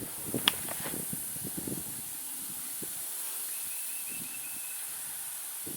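Quiet outdoor background with a steady high hiss. A few faint clicks and knocks come in the first two seconds, and a faint, rapid high chirping comes in the middle.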